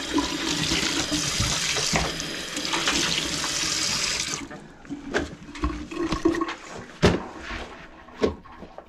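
Kitchen faucet running into a stainless steel sink while gloved hands rinse under the stream. The water shuts off about four seconds in, followed by a few scattered knocks.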